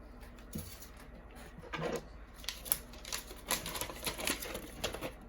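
Paper sheets rustling and crinkling as they are handled and unfolded: irregular crisp crackles and ticks, starting about half a second in.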